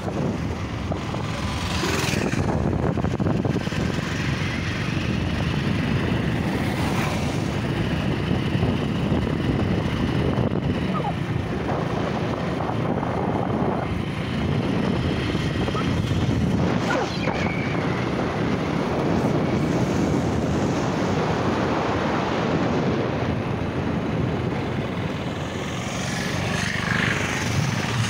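Wind buffeting the phone's microphone: a steady, fluttering low rumble with a few brief brighter rustles.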